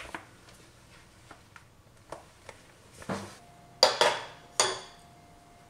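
A few light clicks, then three sharp clanks of a frying pan on a stovetop, each ringing briefly, the loudest two close together about four seconds in.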